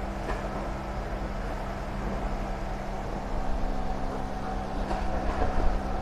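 A machine running steadily nearby, a low even hum with a noisy edge over it.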